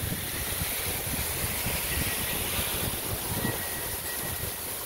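Heavy rain falling in a steady hiss, with wind buffeting the microphone in low, uneven rumbles.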